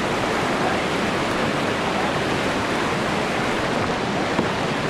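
Steady rush of whitewater from a Class 3 river rapid, an even hiss and roar with no break.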